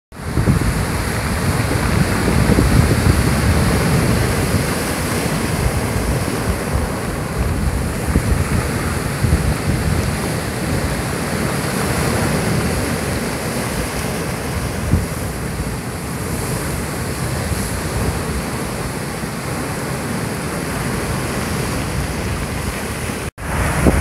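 Rough surf whipped up by an approaching typhoon, waves breaking and washing continuously over a rocky shore, with wind buffeting the microphone as a low rumble. The sound cuts out for a moment near the end.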